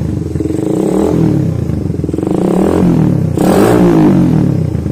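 Suzuki Satria F150's single-cylinder four-stroke engine, fitted with a PE28 carburettor and a Lonerider aftermarket exhaust, revved up and down three times, the last rev the highest and loudest.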